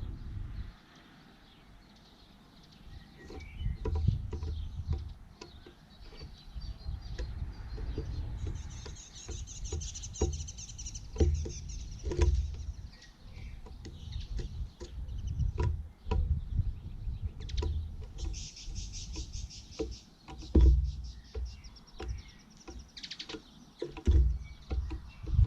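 Outdoor bird sounds: a high, fast trill comes twice, once near the middle and again about two-thirds of the way through. Scattered sharp clicks and an uneven low rumble run under it.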